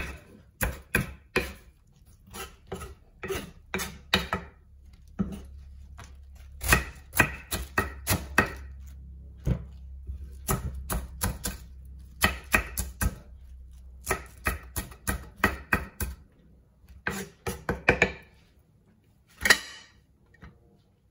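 Kitchen knife chopping iceberg lettuce on a wooden chopping board: quick runs of chops with short pauses between. One louder knock comes near the end, then the chopping stops.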